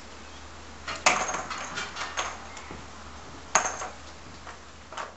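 Empty cartridge cases clinking and rattling as they are shaken from the Taurus Tracker .357 Magnum revolver's cylinder onto the bench: a sharp clink with a short rattle about a second in, more around two and three and a half seconds, and one near the end.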